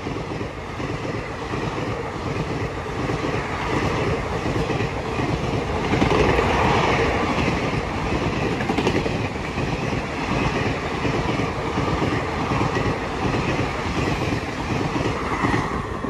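Passenger coaches of the Shridham SF Express (12191) rushing past at speed, steel wheels clattering rapidly over the rail joints with a steady rushing noise, loudest about six seconds in.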